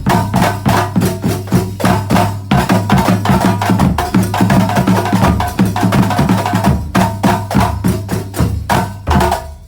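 Terbang frame-drum ensemble playing a fast, dense interlocking rhythm of rapid hand strikes, which drops away briefly just before the end.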